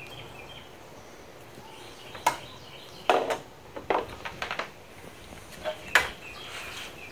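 Hand tools being handled and set down while a wire is stripped: a few sharp clicks and clacks, with a short cluster of clatter a little after three seconds.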